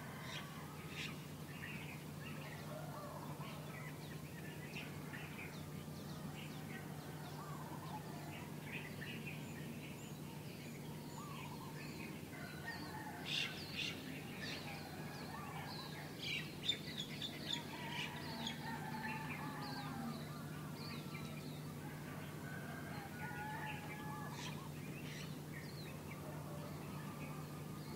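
Several small birds chirping and calling on and off, over a steady low hum.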